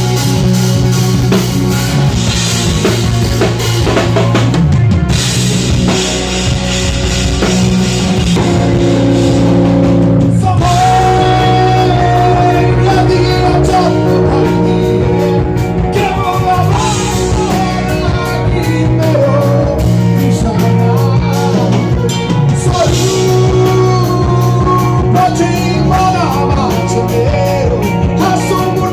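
A rock band playing live with drum kit, bass and guitar; a wavering melody line, singing or lead guitar, comes in about ten seconds in.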